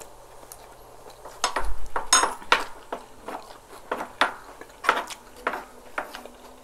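Metal spoon and fork clinking and scraping as food is scooped up, with a cluster of sharp clinks about one and a half seconds in, one with a brief metallic ring, then single clinks every half second or so.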